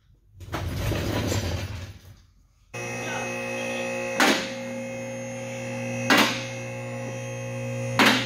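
A two-post car lift's electric hydraulic pump motor runs with a steady hum as it raises a car, and its safety locks clack three times, about two seconds apart, as the arms climb. A brief rushing noise comes first, about half a second in.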